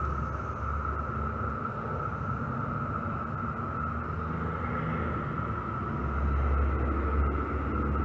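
Chorus of Brood X periodical cicadas: a steady, unbroken drone held at one pitch, with a low rumble underneath that grows louder about six seconds in.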